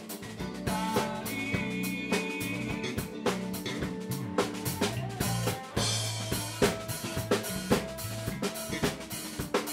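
Live rock band playing a passage of a song with no lyrics heard: electric guitar, electric bass and a drum kit keeping a steady beat.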